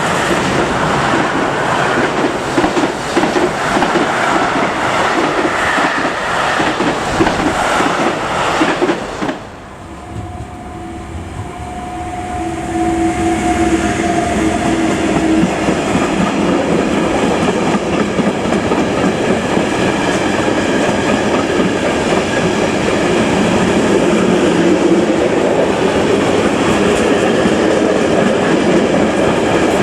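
Trains passing on the line. The first train's wheels clatter rhythmically over the rail joints until its end passes about nine seconds in and the sound drops away. A steady tone then sounds for a few seconds while a second train comes up and passes with a loud, steady rumble.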